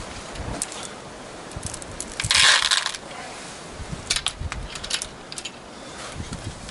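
Steel slingshot ammo balls clicking against each other and the pick-up magnet, with a brief loud rattle about two seconds in, then a few sharp clicks.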